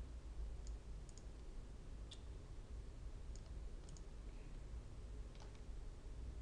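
Computer mouse clicking, with scattered single and double clicks a second or so apart, over a steady low electrical hum.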